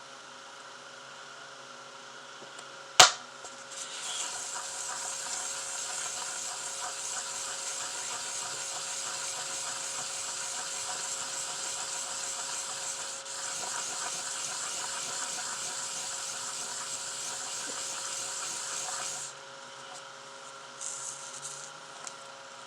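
A sharp tap about three seconds in, then wet sandpaper rubbing in circles on a small silver pendant, going steadily for about fifteen seconds with a brief break partway through, and stopping a few seconds before the end.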